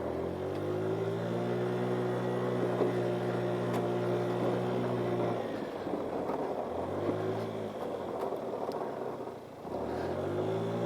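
GY6 50cc scooter's single-cylinder four-stroke engine running under throttle: the note rises and holds steady, drops off about halfway, gives a short rise and fall, then picks up again near the end.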